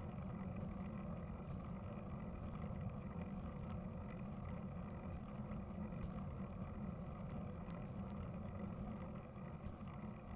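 Steady low rumble of bicycle tyres rolling on a tarmac road, with a few faint clicks.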